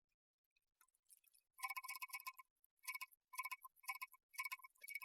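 Faint, even ticking with a light ringing tone, about two ticks a second, starting a little over a second in after dead silence.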